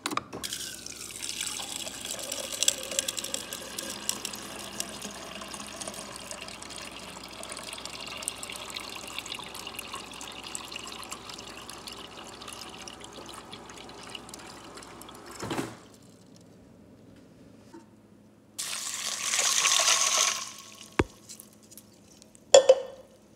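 Refrigerator door water dispenser running into a plastic cup of crushed ice for about fifteen seconds, stopping with a knock. A few seconds later comes a shorter, louder rush of water being poured out, then a click near the end.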